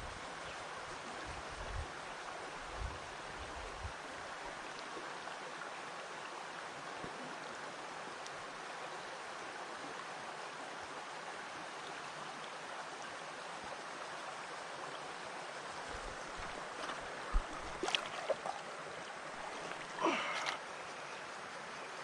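Shallow creek running steadily over a stony bed, a constant rushing hiss. A few brief knocks and clicks come near the end.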